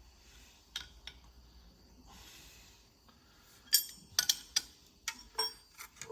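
Metal tools clinking and tapping against a hydraulic hose fitting. There is one sharp clink about a second in, then a quick irregular run of sharp metallic clinks and taps in the last two seconds.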